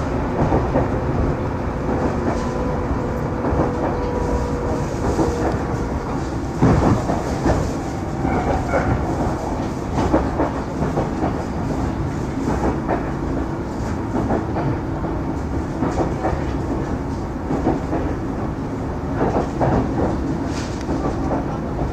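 Inside a Yahiko Line train running at speed: a steady rumble from the running gear, with the wheels clicking over rail joints again and again.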